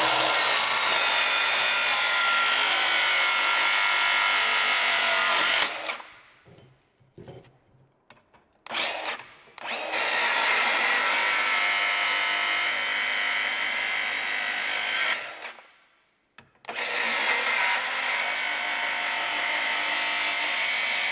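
Milwaukee Fuel metal-cutting circular saw with a Diablo Steel Demon blade running and cutting through 3/4-inch steel rebar, three cuts of about five to six seconds each. Between cuts the saw stops and there are short pauses with a few light clicks, and a brief blip of the motor just before the second cut.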